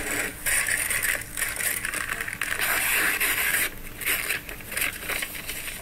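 A globe-shaped jigsaw puzzle being smashed and torn apart: uneven crunching, cracking and scraping of the pieces in a run of bursts with a few brief pauses.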